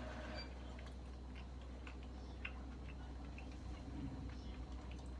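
Faint light clicks and ticks, scattered irregularly, over a low steady hum.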